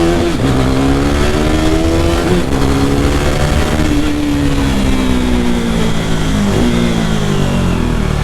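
KTM RC 390's single-cylinder engine through an aftermarket fake Akrapovic exhaust, revving up with a couple of short breaks like gear changes, then its pitch falling slowly over the last few seconds as it comes off the throttle.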